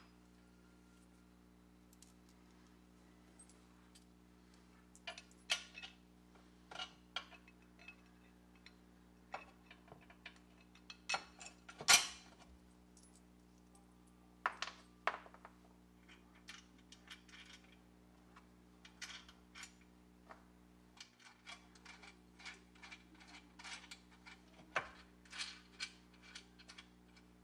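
Small metal parts clinking and clicking as a bolt and nut are fitted into a painted cast-iron lathe bracket on its steel bar: scattered sharp clinks, the loudest about twelve seconds in, with a run of light rapid clicks near the end, over a steady low hum.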